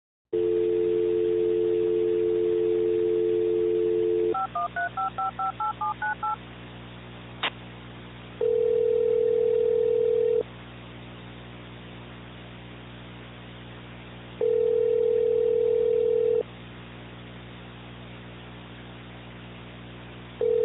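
A telephone call being placed: a steady dial tone for about four seconds, then about ten quick touch-tone keypad beeps as a number is dialled, a click, and the ringback tone ringing two seconds on, four seconds off, twice, with a third ring starting near the end. It has the thin sound of a phone line.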